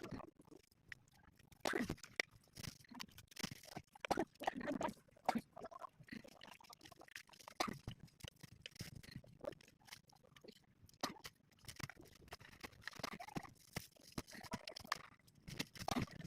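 Pigs feeding: a run of crunching and chewing sounds, with a few short grunts, about 2, 4 to 5 and 13 to 15 seconds in.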